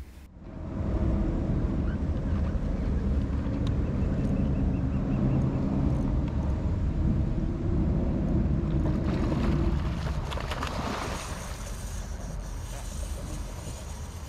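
Wind buffeting the microphone over open water, a steady low rumble, with a few knocks about nine to eleven seconds in, then easing off toward the end.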